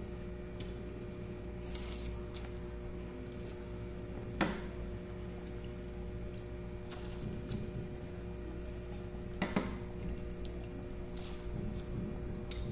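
Spiced chicken pulao water bubbling at a boil in a pot as rice is tipped in, over a steady hum. Two sharp clicks, about four seconds in and again about five seconds later.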